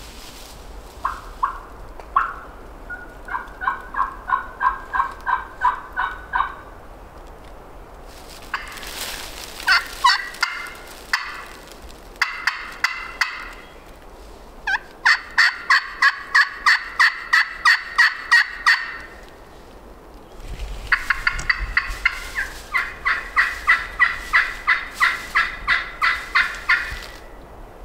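Turkey yelping: several long runs of evenly spaced yelps, about three a second, with short pauses between the runs. The first run is lower-pitched and the later runs are higher and louder.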